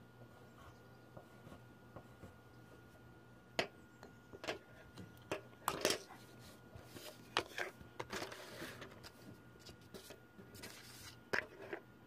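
Pencil drawing and handling on paper: scattered light clicks and short scratchy rustles of coloured pencils on the sheet, over a faint steady hum.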